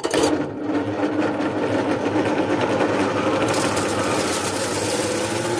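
Electric motor of a belt-driven grain crusher (hammer mill) switched on: the noise starts suddenly and the motor spins up, its hum slowly rising in pitch. A noisy, steady running sound, with a hiss that grows louder about three and a half seconds in.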